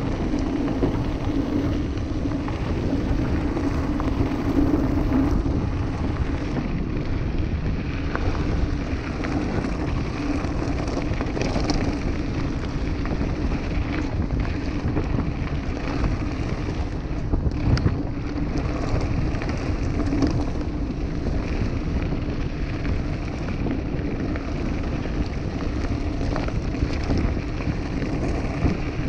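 Mountain bike rolling fast along a loose gravel track: a steady crunch and hum from the tyres on the gravel, wind buffeting the microphone, and scattered clicks and rattles from stones and the bike.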